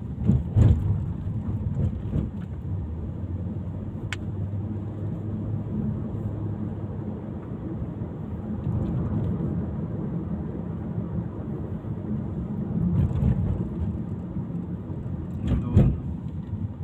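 Car driving steadily: a low engine hum and road rumble, with a couple of low thumps, one about half a second in and one near the end.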